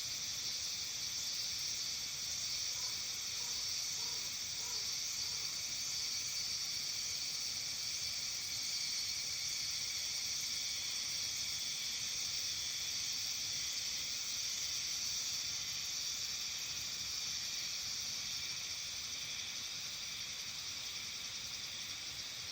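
Steady, high-pitched insect chorus, a dense continuous shrill, easing slightly near the end. A few faint short calls sound about three to five seconds in.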